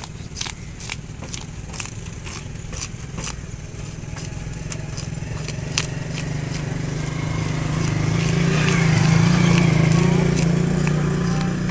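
Fish being scaled by hand: a flat blade scraping along the fish on a metal counter in quick strokes, about two or three a second, flicking scales off. A motor's low hum swells in behind it, loudest about nine seconds in.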